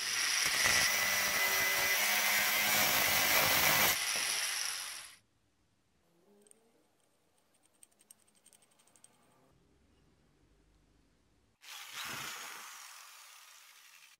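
A power tool working metal runs loudly for about four seconds with a steady high whine, then winds down. Faint clicks and handling follow. Near the end another burst starts suddenly and fades away.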